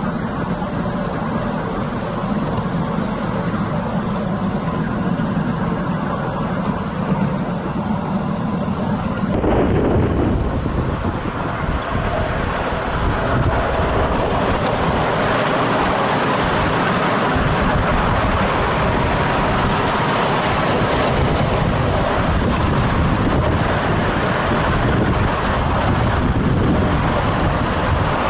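Ride-on miniature railway train running along its track, a steady rumble of the wheels on the rails. About nine seconds in, the sound cuts abruptly to a steady rushing noise.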